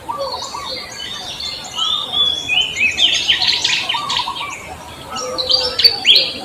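Many birds chirping at once: a dense run of short falling and arching chirps, thickest about three seconds in and again near the end.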